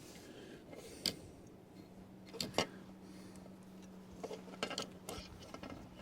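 A few light, sharp clicks and taps of small tools and plastic parts being handled at a workbench during fine soldering work on a small switch unit, over a faint steady hum.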